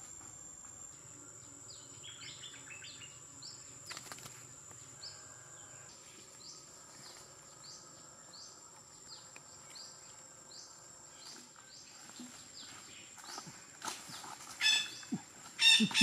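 Green parakeet chirping, short falling chirps every second or so over a steady high insect whine. Near the end the bird breaks into loud, harsh squawks and wing-flapping as it is caught in the snare trap.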